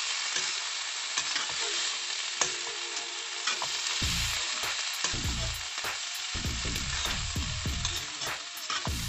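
Silkworms sizzling in oil in a pan over a wood fire, with a utensil stirring and scraping the pan in scattered clicks. Dull low bumps come in the second half.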